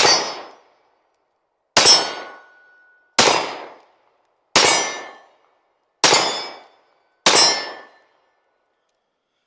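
Ruger LC9 9mm pistol firing six shots in slow succession, about one every one and a half seconds, each with a short ringing tail. A thin ringing tone hangs on briefly after the second shot.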